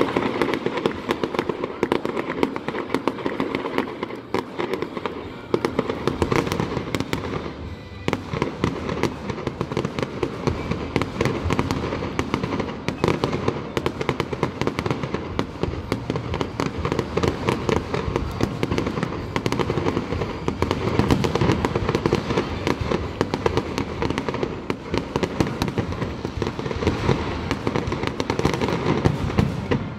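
Aerial fireworks exploding and crackling in a dense, continuous barrage of bangs and pops, many each second.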